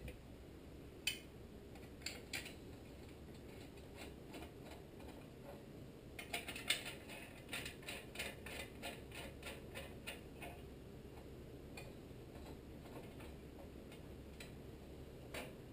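Faint metallic clicks from hand work on the small engine's bolts and sheet-metal shroud: a few scattered clicks, then a run of evenly spaced clicks, about four a second, lasting some four seconds from about six seconds in.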